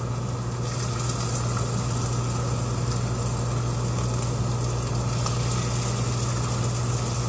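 Steady low electrical hum with an even hiss over it, from a running kitchen appliance.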